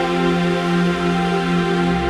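Background music of held, sustained electronic chords in an ambient, new-age style.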